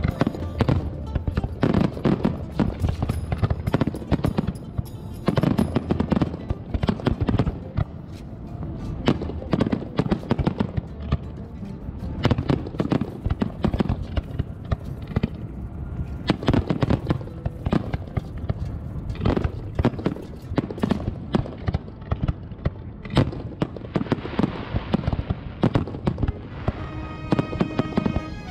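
A fireworks display: aerial shells burst in quick succession, making a dense, overlapping run of sharp bangs and crackles, with music playing underneath.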